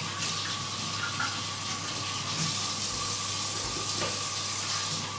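Kitchen tap running steadily into a sink while hands are washed under it, with a faint steady tone beneath the rush of water.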